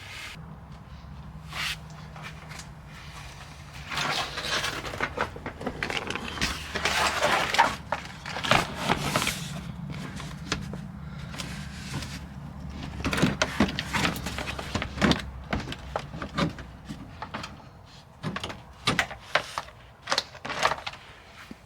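Workshop work sounds: repeated knocks and clatter of tools and parts, with bursts of scraping or rustling, over a steady low hum that stops about three-quarters of the way through.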